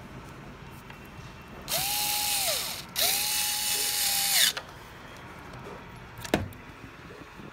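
Electric screwdriver running in two bursts of about one and one and a half seconds, its motor pitch rising, holding steady and falling away each time as it drives screws tight into the extruder bracket. A single sharp click follows a couple of seconds later.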